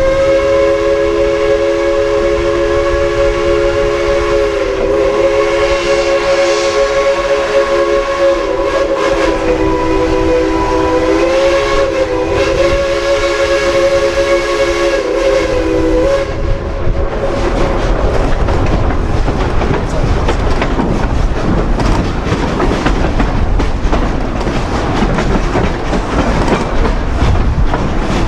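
Steam locomotive's chime whistle blowing one long, chord-like blast of about sixteen seconds, its pitch wavering slightly. After it cuts off, the train rumbles and clatters past.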